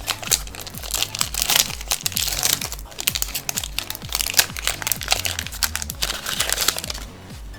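Foil booster-pack wrapper crinkling as it is handled and torn open, over background electronic music with a steady beat. The crinkling stops about seven seconds in, leaving the music.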